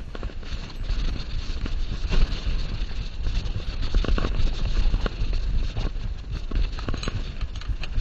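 Cross lug wrench clicking and knocking against the wheel nuts as it is fitted and turned, over a heavy low rumble and rustling from a jacket and movement on a body-worn microphone.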